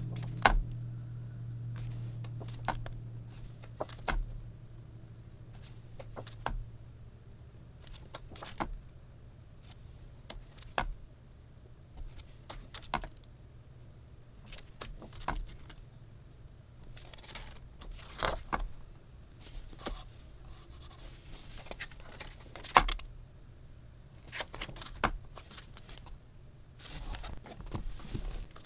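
Pages of a hardcover photobook being turned by hand, one short papery flick about every two seconds, with more handling of the book near the end.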